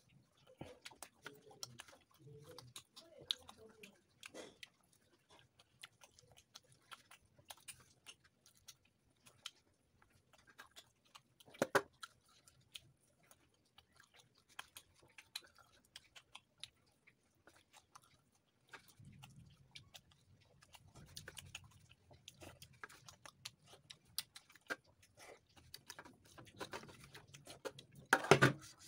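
Close-up wet chewing and lip-smacking of a person eating paratha and potato curry by hand, with many short sharp mouth clicks. A louder knock comes just before the end.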